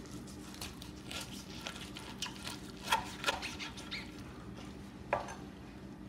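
Chef's knife cutting through a smoked, dirty-rice-stuffed Cornish hen on a wooden cutting board: a run of short crunching and scraping noises from the blade going through skin, bone and stuffing, loudest about three seconds in and again about five seconds in.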